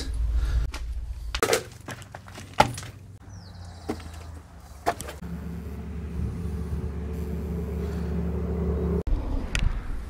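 Footsteps crunching on gravel and dirt inside a corrugated steel culvert pipe, a handful of separate steps in the first half. After that a steady low hum runs for about four seconds and then stops abruptly.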